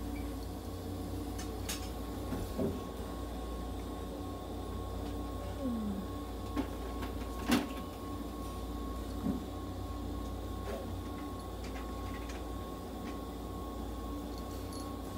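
Steady low machine hum with a faint constant whine, broken by a few light clicks and knocks; the sharpest knock comes about seven and a half seconds in.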